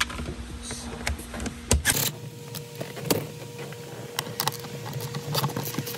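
Scattered clicks, light knocks and rattles of hand tools and plastic dashboard parts being handled while a car dashboard is taken apart, over a faint steady hum.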